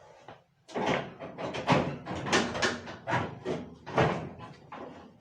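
Rapid knocks and clatter of dryer cabinet parts being handled and pulled loose, about a dozen sharp hits in quick succession starting a little under a second in.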